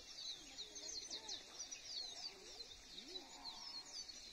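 Many birds chirping at once: a faint, dense chorus of quick, high, falling chirps, with lower calls sliding up and down beneath them.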